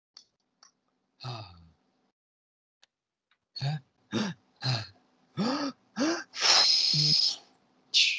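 A person's voice making cartoon-character vocal noises: a short grunt about a second in, then five quick clipped syllables, each with a brief rise and fall in pitch, and a long breathy hiss near the end.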